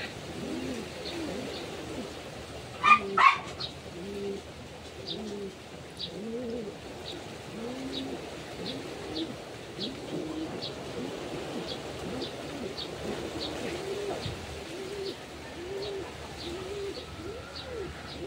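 Doves cooing over and over, a low call rising and falling every second or so. Two short sharp sounds come about three seconds in.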